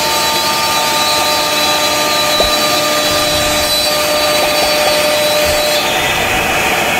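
CNC router spindle cutting MDF sheet with its dust extractor running: a steady whine over loud rushing noise. The higher part of the whine drops away about six seconds in.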